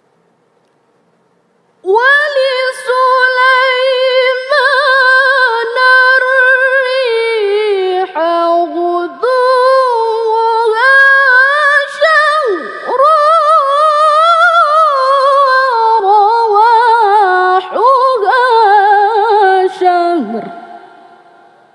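A woman reciting the Quran in the melodic tilawah style: after about two seconds of silence, one long phrase of held, richly ornamented notes with wavering pitch and glides, fading out near the end.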